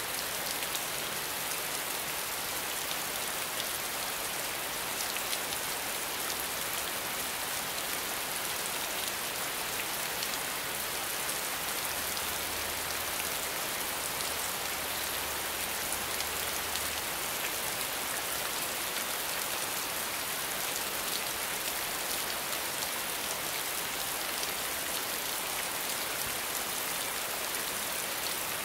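Steady rainfall: an even hiss with scattered sharper hits of single drops.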